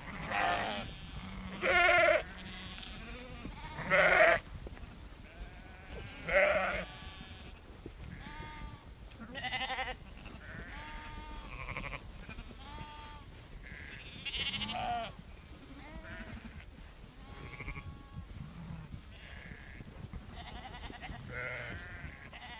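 Several sheep bleating on and off, each bleat a quavering call. The loudest come in the first seven seconds and again around the middle, with fainter bleats in between, over a low steady rumble.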